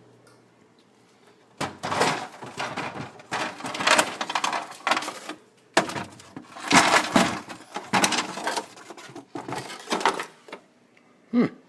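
Ice bin of a GE Profile refrigerator being pulled out and handled: plastic knocking and sliding, with a few loose ice cubes clattering inside. The rattling comes in irregular bursts that start about a second and a half in and stop shortly before the end.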